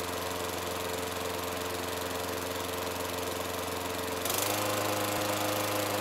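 Riding lawn mower engine running steadily. About four seconds in, it gets a little louder and higher in pitch.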